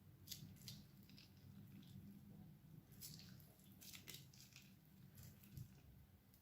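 Crunchy slime being squished and pressed, giving faint, irregular crackles and clicks over a low steady hum.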